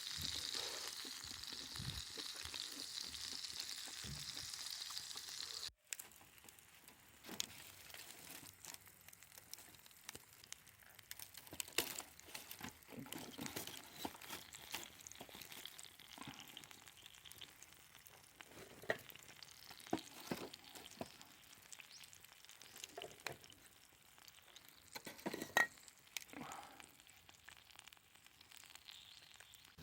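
Pork slices frying in a pan over a bonfire, with a steady sizzling hiss. About six seconds in it drops off suddenly to a much quieter sizzle with scattered pops and crackles.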